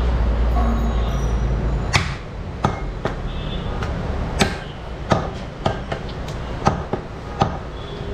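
Heavy meat cleaver chopping beef on a round wooden chopping block: about eight sharp, irregular chops, starting about two seconds in. A steady low rumble fills the first two seconds.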